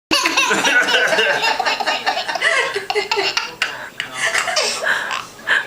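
People laughing and chuckling, high-pitched voice sounds throughout.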